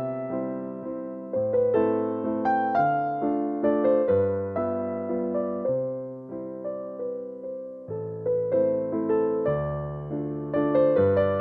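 Background music: a gentle piano tune, melody and chords over a low bass line, each note struck and fading away.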